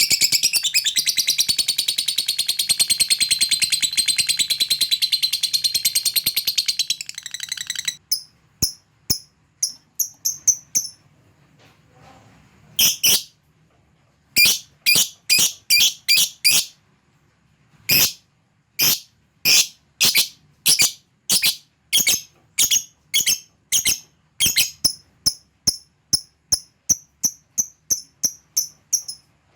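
Lovebird giving a long, very fast high chattering trill (the 'ngekek'), which breaks off about seven seconds in. After that come short, sharp ticking chips ('ngetik'), spaced irregularly at about one or two a second.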